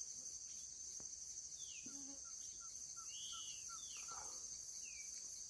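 A steady high-pitched insect drone, with birds calling over it: several short falling chirps and, in the middle, a quick run of short notes at about four a second.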